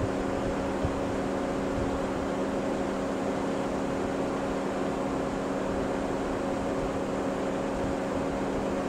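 Steady, unchanging hum of several tones from the level crossing's equipment while the barriers are down, over a background hiss, with one small click about a second in.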